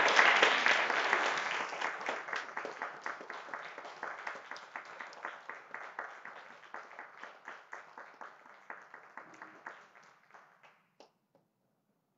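Small congregation applauding: loudest at the start, then thinning out to scattered single claps and stopping shortly before the end.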